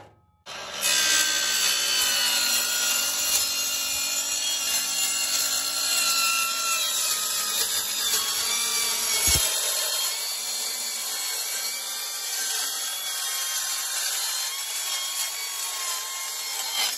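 Cordless circular saw cutting 1/8-inch aluminium sheet, running steadily with a high whine for about sixteen seconds, starting about half a second in and stopping just before the end. There is a single low knock about halfway through.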